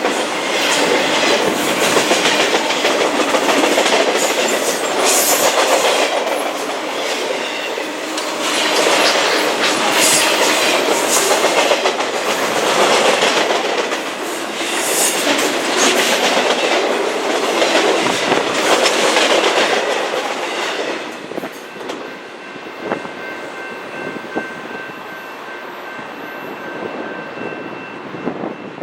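Railroad cars rolling past close by, wheels clattering steadily over the rail joints. The passing noise drops away about 21 seconds in, leaving quieter wind noise.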